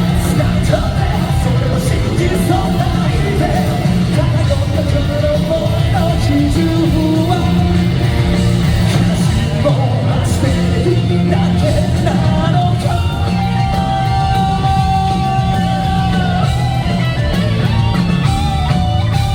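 Live rock band playing loud, with electric guitar, bass, drums and singing. A long held note sounds about two-thirds of the way through.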